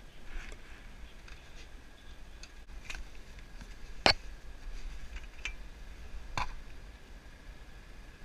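A few scattered sharp knocks and clicks, the loudest about four seconds in, from someone climbing the metal rear ladder of an RV onto its roof.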